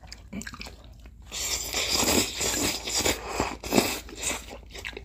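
Noodles slurped from a bowl: a long hissing slurp starting about a second in and lasting about two and a half seconds, then softer chewing.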